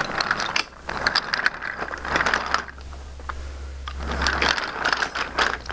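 Wooden toy train cars rolling along wooden track, their wheels rattling and clicking over the track joints in an uneven clatter.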